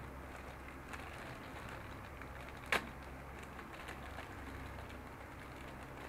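Faint handling of a plastic bag of model-kit parts: scattered small clicks and crinkles, with one sharp plastic click about three seconds in, over a low steady room hum.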